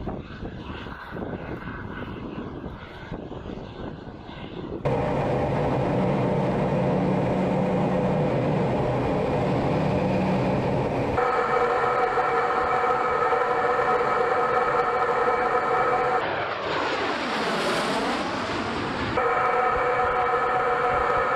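Su-25 twin turbojet engines. First they are heard from the ground as the jets pass low, a rushing sound. Then, from about five seconds in, they are heard from inside the cockpit: a loud steady engine drone with a high whine of several held tones. Near the end a sweeping sound briefly dips in pitch and rises again before the steady cockpit whine returns.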